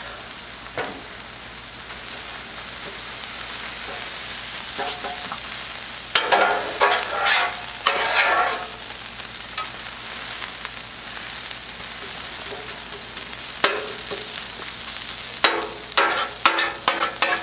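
Cold day-old rice, scrambled egg and peas and carrots sizzling on a very hot steel flat-top griddle. Metal spatulas scrape and clack against the plate in spells about six seconds in and again near the end.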